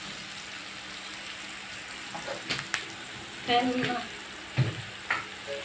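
Chopped onions and yellow and green capsicum frying in oil in a pan: a steady sizzle. In the second half a wooden spatula knocks and scrapes against the pan several times.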